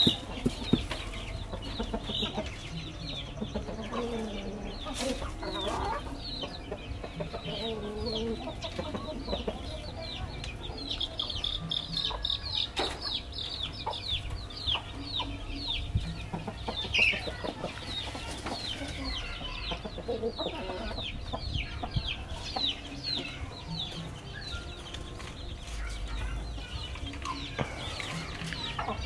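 Chickens clucking, with a few low calls standing out, over a near-constant chatter of short, high, falling chirps.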